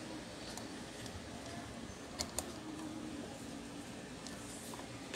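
Two sharp plastic clicks about two seconds in, a fraction of a second apart, as a replacement print head is handled in the carriage of an Epson L120 inkjet printer, over a faint steady background hum.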